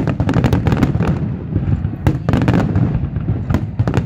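A barrage of aerial firework shells bursting, many sharp bangs a second overlapping over a continuous low rumble.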